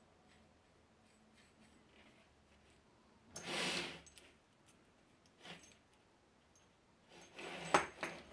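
Coiled stainless-steel shower hoses being handled: a brief rubbing rustle a few seconds in, then a run of metallic clicks and rattles near the end as the hoses are set down on a table.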